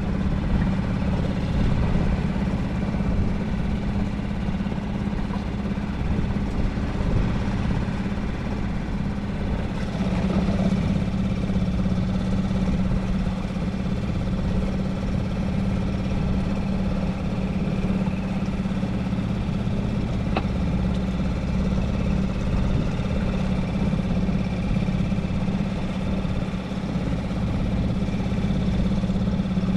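Small boat's motor running steadily at a constant pitch, with a low, even hum.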